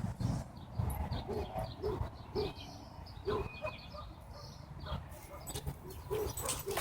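Birds calling: short low coos repeated irregularly, with a few higher chirps.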